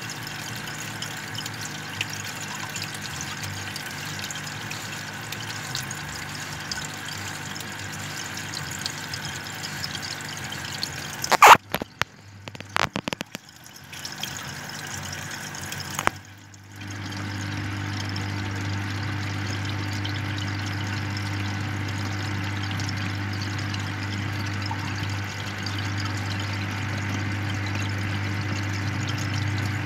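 Aquarium air stone bubbling steadily. A little over ten seconds in come a loud knock and a few clicks, and from about halfway a steady low hum joins the bubbling.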